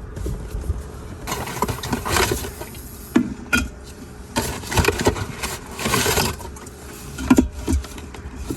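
Aluminium soda cans being handled and slid into a compact compressor fridge in a truck's center console: bouts of scraping and rustling with a few sharp clinks, over the steady low hum of the running truck.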